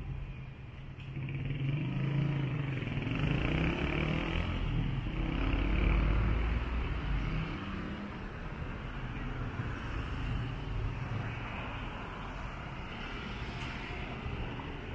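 City street traffic: a motor vehicle passing, its engine and tyre noise swelling to a peak about six seconds in and then easing back into a steady traffic hum.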